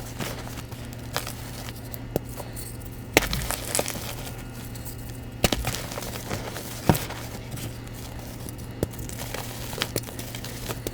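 Reformed blocks of Bon Ami cleanser powder crumbling as they are crushed by hand, with scattered sharp crackles and taps. A low steady hum runs underneath.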